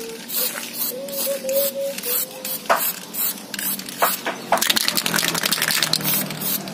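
Pilox aerosol spray-paint can hissing as black paint is sprayed onto a high-heeled shoe. The spray comes in short bursts, a few a second, then runs as one longer spray for about a second and a half, starting about four and a half seconds in.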